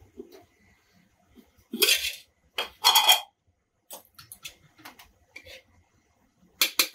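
Metal cutlery clattering and clinking against cookware: a few short clatters, the loudest about two and three seconds in, then lighter clicks and a quick double clatter near the end.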